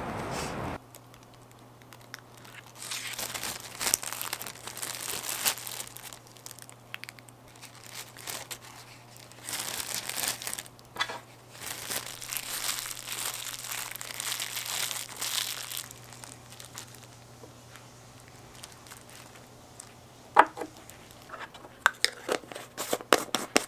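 A plastic bag crinkling in stretches as hands squeeze and knead cotton pads and petroleum jelly inside it. A few sharp clicks come near the end, over a faint low hum.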